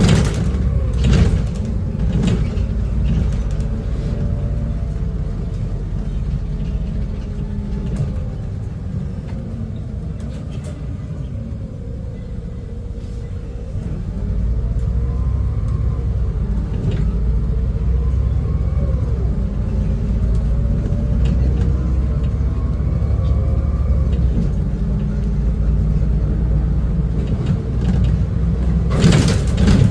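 Interior of a moving bus: steady engine and road rumble with faint rattles. It quietens from about ten seconds in, picks up again from about fourteen seconds, and has a short burst of rattling near the end.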